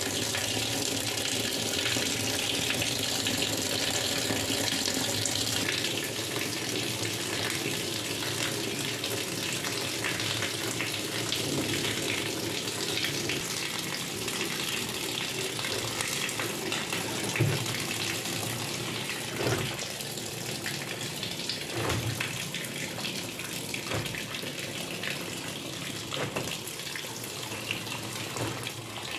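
Water running steadily in a twin-tub washing machine. It starts abruptly, and a few soft knocks come in the second half.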